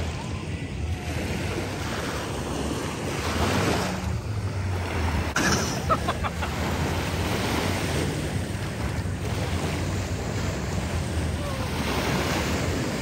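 Small lake waves lapping in the shallows, with wind buffeting the microphone as a steady low rumble.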